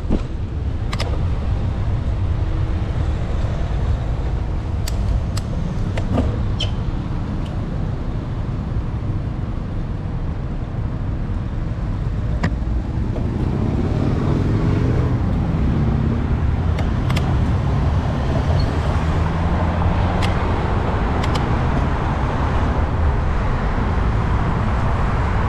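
Riding noise of a bicycle heard through an action camera's microphone: a steady rumble of wind and tyres with scattered sharp clicks and rattles. The noise grows louder about halfway through, with passing traffic.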